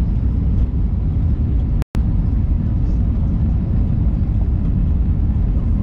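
Jet airliner cabin noise in flight: a steady low rumble of engines and rushing air heard from a window seat. It cuts out completely for a split second about two seconds in.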